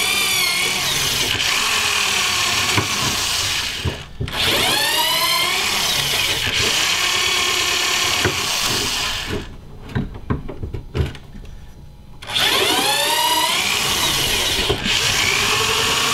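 Reversible electric drill in a drill-guide stand driving a tap to cut threads in the handle screw holes of a steel knife blank. The motor runs in three long stretches, its pitch sliding up and down as the tap loads and unloads, with a brief stop about four seconds in and a longer pause of a few seconds around ten seconds.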